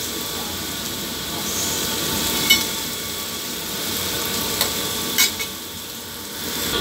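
Tomato and green onion sautéing in hot oil in a pan: a steady sizzle, with a few sharp clinks as the pan is stirred.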